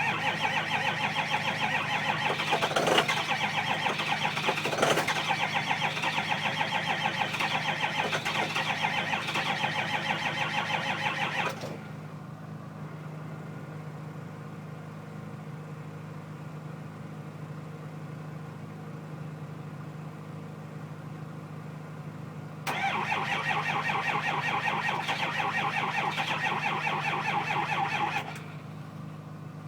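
2005 Ford 6.0-litre Power Stroke diesel V8 cranking on the starter in a hard cold start without catching. It cranks for about eleven seconds, pauses, and near the end cranks again for about five seconds. A steady low hum continues underneath.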